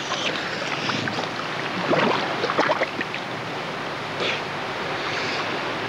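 Water splashing and sloshing around a cave diver moving at the surface, with irregular splashes about two seconds in and again shortly after.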